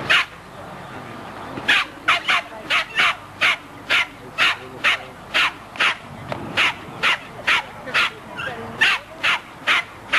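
A Plummer terrier barking repeatedly in sharp, high yaps, about two and a half a second, in a steady string from about two seconds in.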